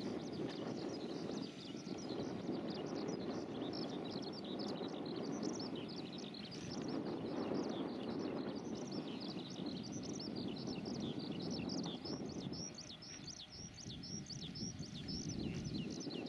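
Many birds chirping in quick, continuous short notes over a low rushing noise that swells and fades.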